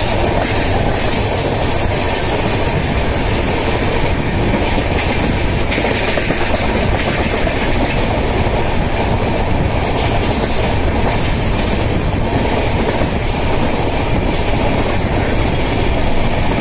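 Wheels of an LHB passenger coach running fast on the rails, heard from the open coach side: a steady, loud rumble of track noise with rushing air.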